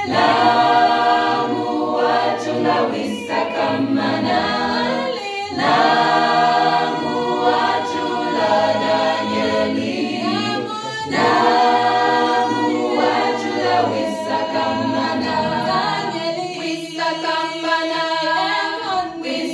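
Church choir singing a cappella, with no instruments, in long sustained phrases that break briefly about every five or six seconds.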